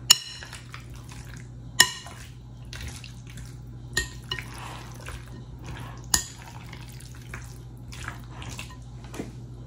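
A spoon stirring chicken pieces through a thick yogurt marinade in a glass mixing bowl: soft wet squelching and scraping, with four sharp clinks of the spoon against the glass that ring briefly.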